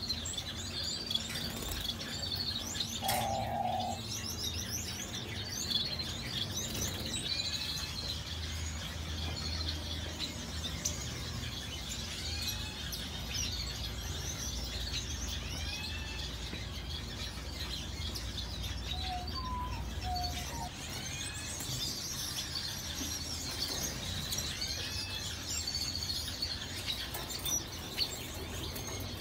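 Many small aviary birds chirping and calling together: a continuous chatter of high chirps with repeated short curved calls.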